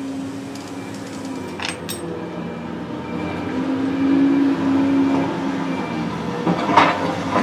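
Excavator's diesel engine working under load, rising in pitch and level a few seconds in, with sharp metal clanks about two seconds in and near the end.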